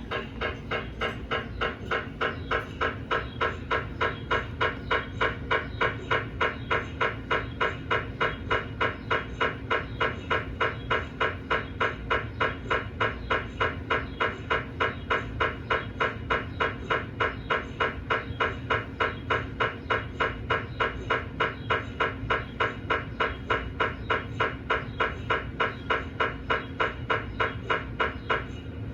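GE 1.5 Tesla MRI scanner's gradient coils knocking in a steady rhythm, about two and a half knocks a second, as a scan sequence runs, over a steady hum. The knocking stops suddenly near the end.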